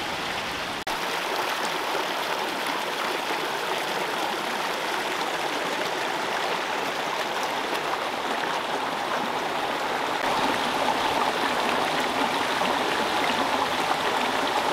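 Shallow spring-fed stream running over rocks: a steady, continuous rush of flowing water.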